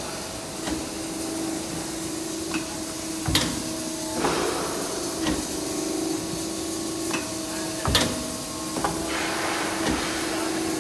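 Hydraulic press for die-cutting jigsaw puzzles running, with a steady hum throughout. Sharp knocks come now and then, and two short bursts of hiss come about four and nine seconds in.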